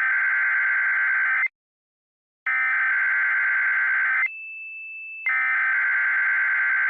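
Emergency Alert System SAME header: three bursts of rapid digital data tones, each just under two seconds long and about a second apart. A short steady high beep sounds between the second and third burst.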